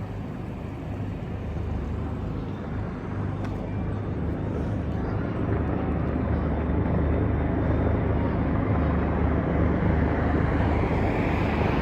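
Motor vehicles approaching on the road: a steady engine rumble with road noise that grows louder over the seconds.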